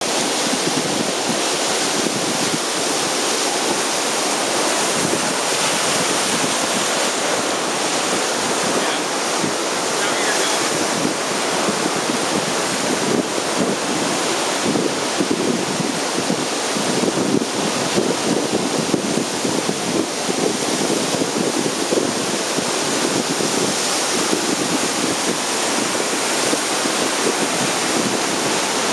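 Ocean surf: a steady wash of breaking waves and rolling whitewater.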